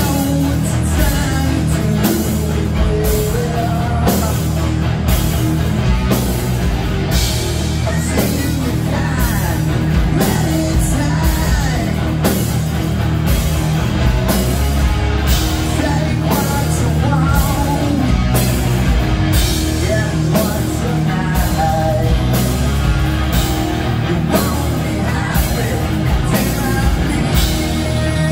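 Live rock band playing loud, with electric guitars, bass and a steady drum beat, and a singer.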